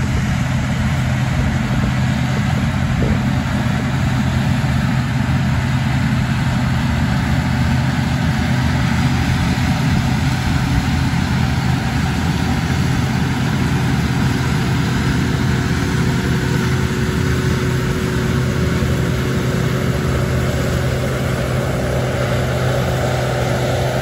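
Combine harvester cutting corn, its diesel engine and threshing running as a steady drone with a constant low hum. A faint steady whine comes in about halfway through.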